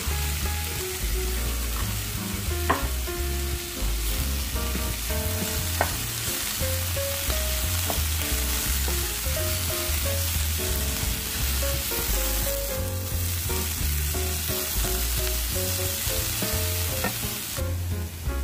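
Vegetables and tofu sizzling in a hot pan as they are stirred with a wooden spatula, with a few sharp clicks of the spatula against the pan. The sizzle drops away shortly before the end. Background music plays underneath.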